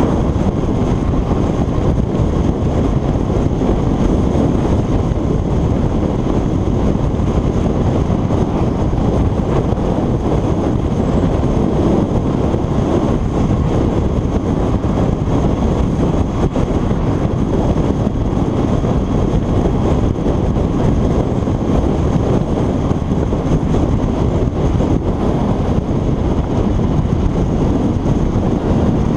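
Steady wind noise on a GoPro microphone on a motorcycle riding at road speed, a loud low rush mixed with engine and tyre noise, unchanging throughout.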